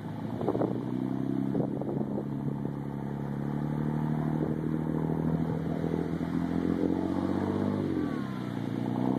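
Boat engine running steadily during an effort to pull a grounded boat off a sandbar; its pitch dips about eight seconds in and then settles again.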